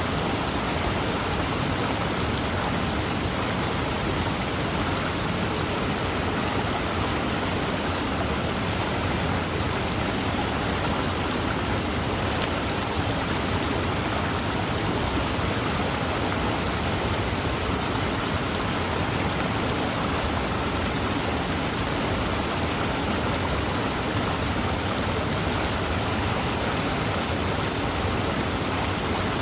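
Fast-moving river running, a steady, even rush of water with no breaks or changes.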